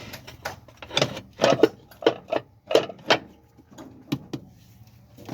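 A series of about nine sharp knocks and clanks, loudest and closest together between one and three seconds in, from tractor brake parts being handled and fitted, over a faint steady low hum.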